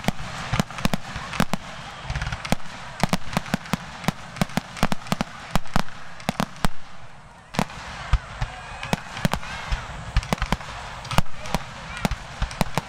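Starmine fireworks barrage: aerial shells launching and bursting in a rapid, irregular string of sharp bangs, with a brief lull about seven seconds in.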